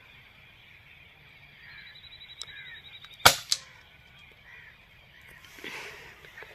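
Airgun shot: one sharp crack about halfway through, followed a quarter of a second later by a second, fainter crack.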